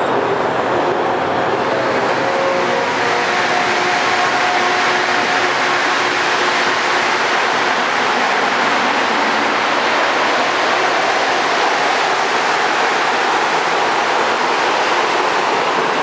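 Rubber-tyred Montreal metro train pulling out of the station and accelerating along the platform: a loud, steady rush of running noise, with whining motor tones during the first few seconds.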